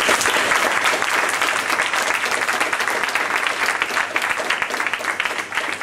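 A small audience applauding, many hands clapping at once in a steady run.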